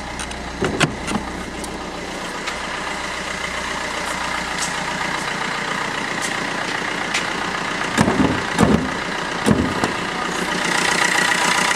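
Vauxhall Astra 1.3 CDTI diesel engine running as the car is driven, a steady noise with a few short knocks about eight to ten seconds in.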